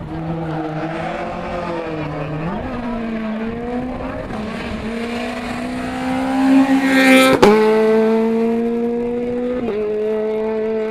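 Rally car engine revving hard and changing gear through a stage, growing louder and passing close about seven seconds in with a sharp crack and a drop in pitch, then pulling away.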